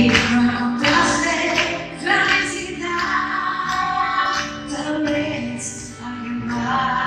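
Live cumbia band playing, with a woman singing lead over guitar and backing instruments.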